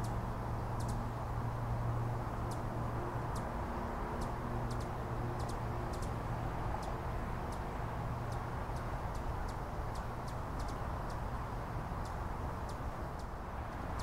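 A perched hummingbird, which the uploader takes for a Broad-tailed Hummingbird, gives short, high chip calls, single or doubled, about one to two a second and more often toward the end, over a steady low rumble.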